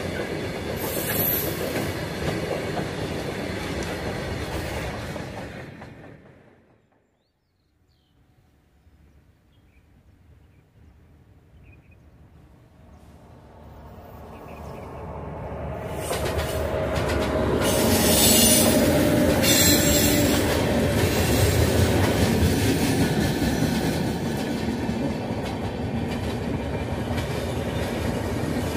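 A freight train of covered goods wagons rolls past with wheels clattering over the rail joints, and the sound fades out about six seconds in. After a short silence, a WAP7 electric locomotive hauling LHB passenger coaches approaches and grows loud as it goes by, with a shrill high-pitched sound from the wheels. The coaches keep rolling steadily past after that.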